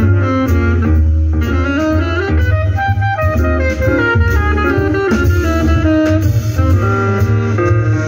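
Recorded music with a melody line over a strong bass, played back through a Marantz PM8000 integrated amplifier into a pair of loudspeakers.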